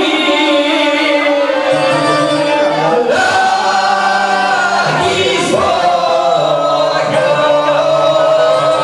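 Live Bosnian folk music, with several voices singing together over the band, loud and steady.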